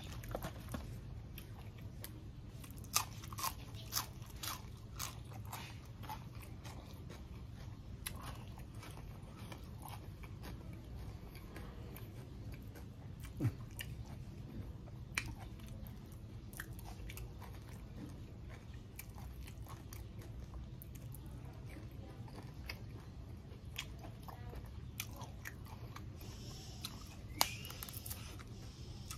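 Close-up mouth sounds of a man chewing crunchy fresh vegetables and raw beef, with scattered sharp bites and crunches between quieter chewing.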